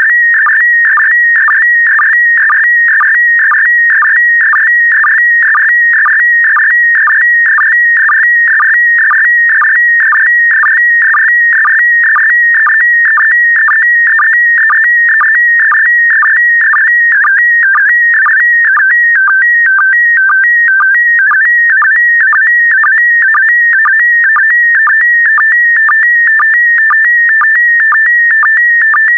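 Slow-scan television (SSTV) signal in PD120 mode: a loud, continuous electronic warble with a steady high tone and a rhythmic pulse about twice a second as each pair of image lines is sent.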